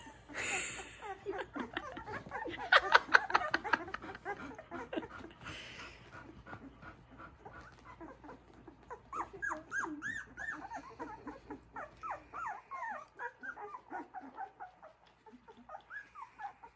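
A litter of young puppies, just learning to walk, whimpering and squeaking in many short, high calls that rise and fall, several at once and loudest about three seconds in. Brief soft rustling near the start and around five seconds in.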